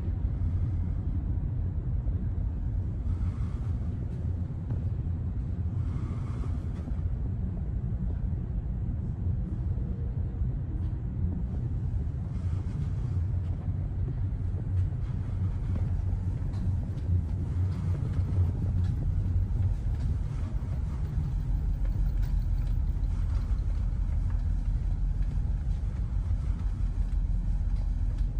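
Steady low engine rumble, deep and even throughout, with a few faint brief noises above it.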